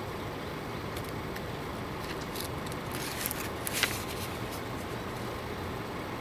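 A paper page of a handmade book turned by hand, a brief crisp rustle about three to four seconds in, over a steady background hum of traffic.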